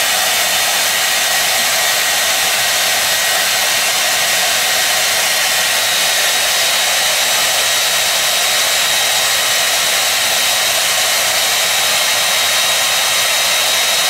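Handheld hair dryer running steadily: a loud, even rush of blown air with a thin, steady high whine from its motor.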